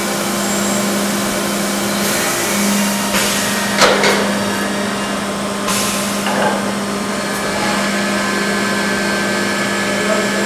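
Mollart four-spindle gundrilling machine running while drilling a pellet die: a steady machine hum over dense noise from the spindles and high-pressure coolant, with short louder bursts of noise about three to four seconds in and again near six seconds.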